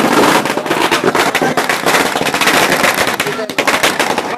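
Firecrackers going off in a rapid, unbroken run of bangs, many a second, loud and close.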